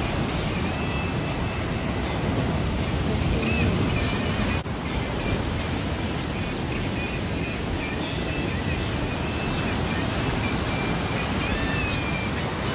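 Ocean surf breaking and washing ashore, a steady rushing noise heaviest in the low end, with faint wavering high tones over it from about a quarter of the way in.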